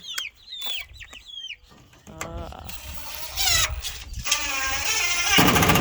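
Baby chicks peeping in short falling chirps, then a longer, louder rasping sound from about two seconds in that peaks near the end.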